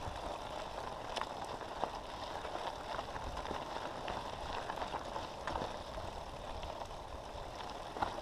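Mountain bike tyres rolling over a gravel track: a steady gravelly hiss with scattered small clicks and knocks.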